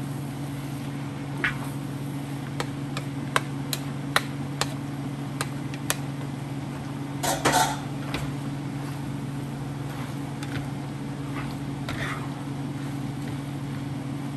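Cooking utensil clinking against a frying pan in sharp single taps, with a louder burst of clatter about seven seconds in, over a steady low kitchen-appliance hum.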